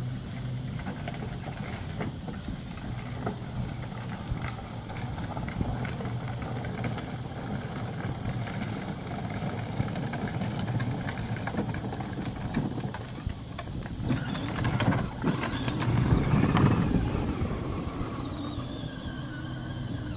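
Child's electric ride-on ATV backing up, its small motor humming steadily while the plastic wheels crackle over pavement. It gets louder for a couple of seconds about three-quarters of the way through.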